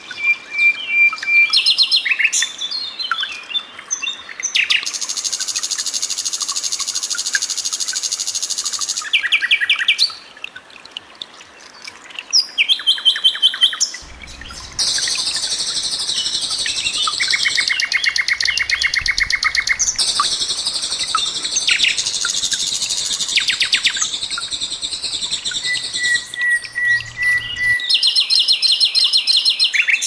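Common nightingale singing: varied phrases of rapid repeated notes and dense rattling trills, broken by a few long, even whistles, one at the start and another near the end.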